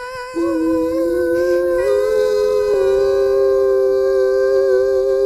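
A child's singing voice holding the final long note of a song to Mom, with a second, lower note held beneath it from about half a second in that steps up slightly twice.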